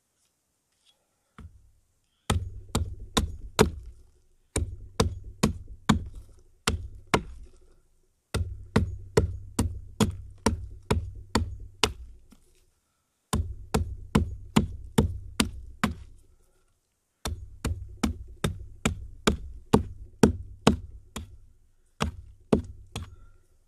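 Small hatchet chopping into a birch stick held against a log: sharp wooden strikes, about three a second, in runs of several blows with short pauses between them.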